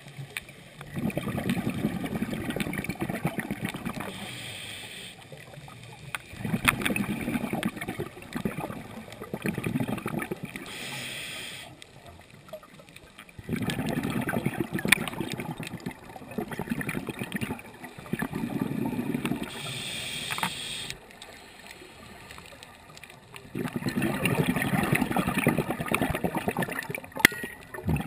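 Scuba diver breathing through a regulator underwater: bubbling surges a few seconds long, about every five to six seconds, as each breath is exhaled, with a short hiss between some of them as the next breath is drawn.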